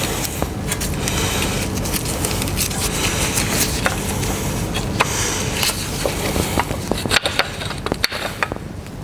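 Hand tools and metal brake parts clicking and scraping irregularly over a steady low hum, as brake components are worked loose.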